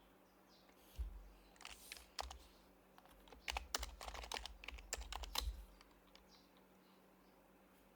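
Typing on a Happy Hacking Keyboard Professional HYBRID Type-S, its silenced Topre switches giving soft, muted keystrokes. A few scattered keystrokes come about a second in, a quick run of typing follows around the middle, then a pause.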